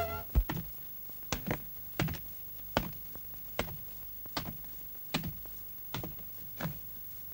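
Slow footsteps of heavy boots walking on stony dirt ground: separate thuds at an even pace, about one step every three-quarters of a second.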